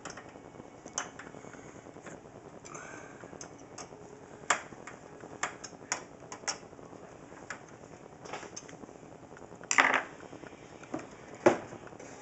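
Screwdriver tightening the power supply's mounting screws into the back of a computer case: light clicks and ticks at irregular intervals, with a louder clatter about ten seconds in and a sharp knock shortly after.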